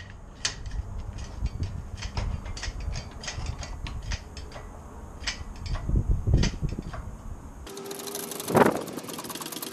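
Hoist lifting an engine-sized drive unit on a chain: a run of irregular metallic ratcheting clicks, with a louder creak about eight and a half seconds in.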